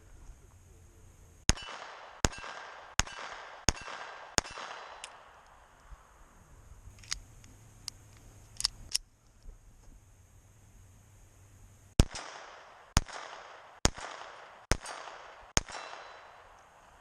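Colt 1908 Vest Pocket pistol in .25 ACP firing two quick strings of five shots, each shot with a short ringing tail. A few small metallic clicks come in the pause between the strings.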